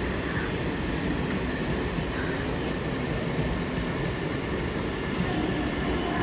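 Mumbai suburban local train, an electric multiple unit, running on the rails with a steady, even running noise and no horn or wheel squeal.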